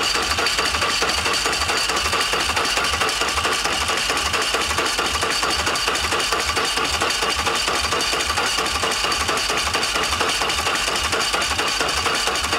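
Electric starter cranking a big-cam Patrick Racing 113 V-twin motorcycle engine with its compression releases unused. The engine turns over and over in an even, rapid rhythm of compression strokes without catching.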